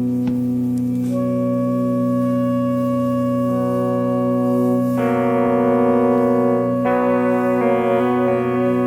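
Slow ambient background music: long held chords over a steady low drone, with new chords coming in about a second in and again around five and seven seconds.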